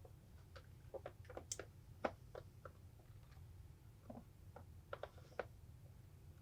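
Faint, irregular small clicks and ticks of a prying tool working under a cracked tablet screen's glued-on glass, over a low steady hum.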